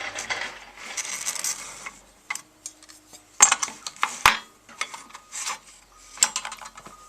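Tools and pieces of wood being handled on a workbench: irregular rustling, clattering and knocks, with one sharp click about four seconds in.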